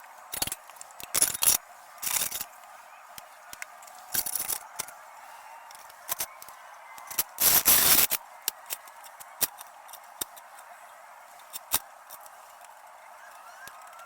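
Irregular metallic clicks, knocks and short bursts of clatter, with the loudest rattling burst a little past halfway: a floor jack being worked and positioned under a car.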